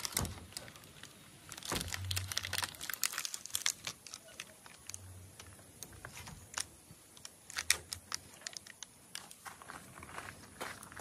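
Clear plastic protective wrap crinkling and rustling, with scattered clicks and knocks, as a roof crossbar and its clamp foot are handled and fitted onto a car roof. The rustling is busiest a couple of seconds in and again around the eight-second mark.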